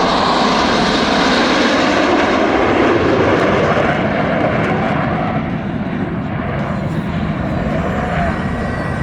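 Loud jet roar from Blue Angels F/A-18 Super Hornets flying past, easing off a little in the second half.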